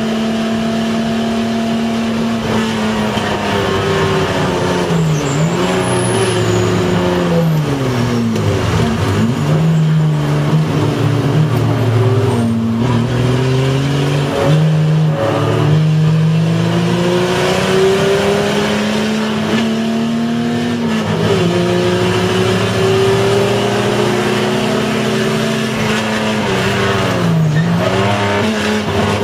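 A race car's engine heard from inside its cabin during a racing lap. It holds high revs at first, then falls as the car slows, climbs in steps through the gears, drops sharply again about two-thirds of the way in, and dips briefly near the end before rising again.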